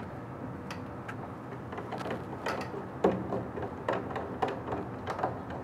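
Scattered light clicks and knocks of hands tightening the screws that fasten a take-up roller into the holder of a DTF printer's take-up device, over a faint steady hum.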